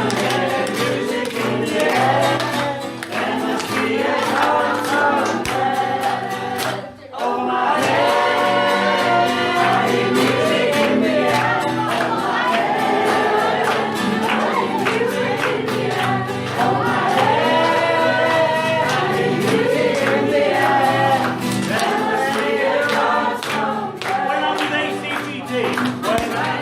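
A choir singing, with the sound dropping out sharply for a moment about seven seconds in before the singing carries on.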